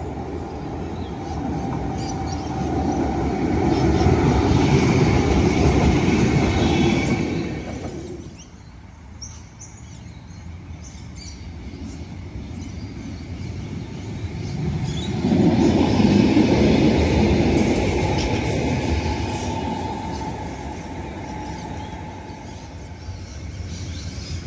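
Two vehicles pass in turn, each swelling up for a few seconds and fading, the second with a steady whine over the noise.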